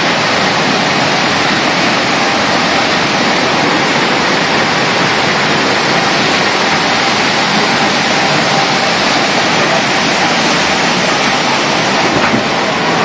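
Rushing water of a log flume ride, a loud, steady, even rush with no breaks.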